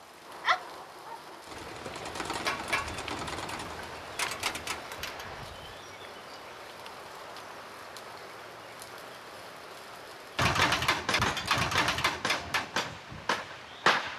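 A small propeller windmill spinning and clattering in the wind: a dense, rapid rattle for about three seconds near the end. Before it there is a softer rustling hiss with scattered clicks.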